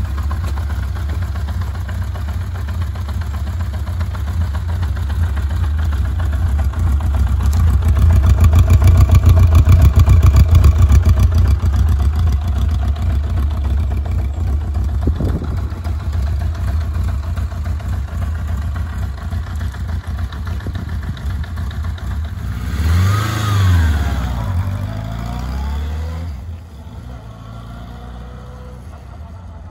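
A 1984 Honda CB750FD's air-cooled double-overhead-cam inline-four running on its original silencers, steady at idle and louder for a few seconds about a third of the way in. Near the end the bike pulls away, the engine note rising and falling as it goes up through the gears, then fading as it rides off.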